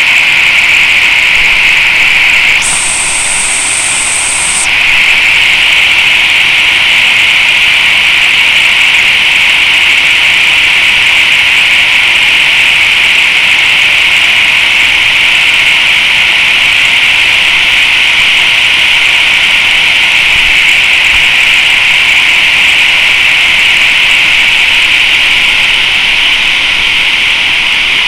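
Loud, steady rushing roar of a waterfall pouring into a plunge pool. About three seconds in, a higher hiss joins for two seconds.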